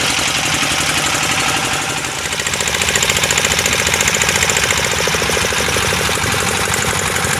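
Fishing boat's inboard engine running steadily under way, with a fast, even knocking beat.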